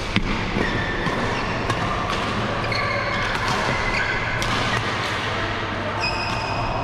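Badminton play: sharp racket-on-shuttlecock hits, the sharpest about a quarter second in, and court shoes squeaking on the court mat again and again, over a steady low hum.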